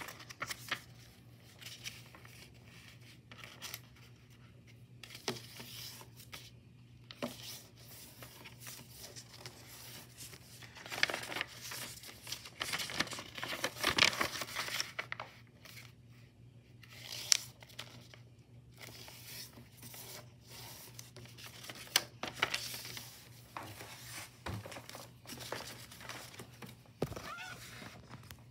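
A sheet of white paper rustling, crinkling and being creased by hand as it is folded. The handling comes in irregular bursts with small crisp clicks, busiest around the middle.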